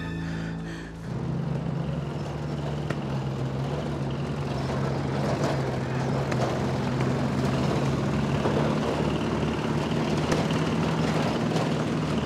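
A steady engine drone: a continuous noisy rumble with a low, unchanging hum, starting about a second in.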